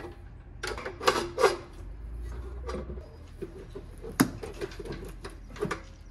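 Metal knocks and clanks from a steel junction box and its conduit nipple being fitted against the wall, with a tool worked on the fitting. There is a quick run of clanks about a second in and the sharpest single clank about four seconds in.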